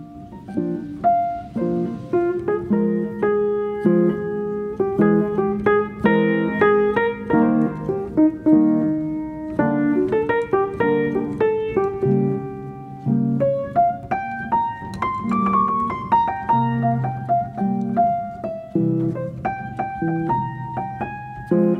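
Piano music: a piano playing a melody over chords, several notes a second.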